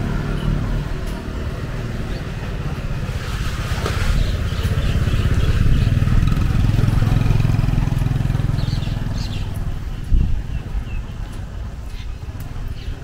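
Motor scooter engines running along a narrow street. One passes close, loudest around the middle, then fades. There is a sharp thump about ten seconds in.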